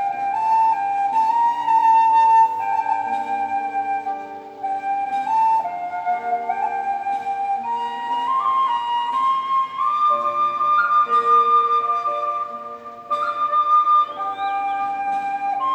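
Instrumental Thai song played on a khlui (Thai flute), a slow melody moving note by note over sustained backing accompaniment.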